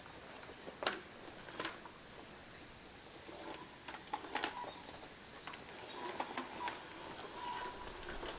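Faint background sound with scattered light clicks and taps.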